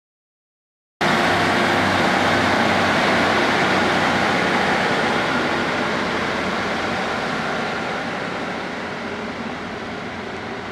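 Class 150/2 Sprinter diesel multiple unit pulling away, its underfloor Cummins diesel engines running under power. The sound cuts in suddenly about a second in and fades steadily from about halfway as the train draws away.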